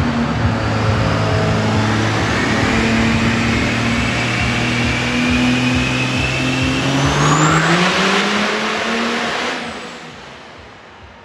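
Pickup truck engine running hard on a chassis dyno under full load, with a high whistle climbing alongside it. The engine note rises over the last few seconds, then the throttle is let off near the end and the sound drops away.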